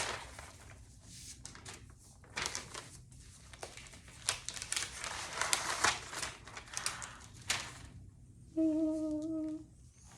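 Packaging being handled and unwrapped: irregular crinkling and rustling of wrapping with short tearing crackles. Near the end a steady hummed note lasts about a second.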